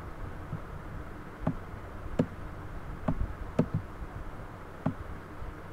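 Computer mouse clicking about six times at irregular intervals while lines are drawn in a paint program, over a steady low hum.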